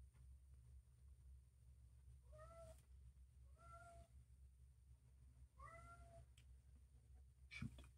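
A domestic cat meowing faintly three times, each call short with a pitch that rises and falls. A brief knock near the end.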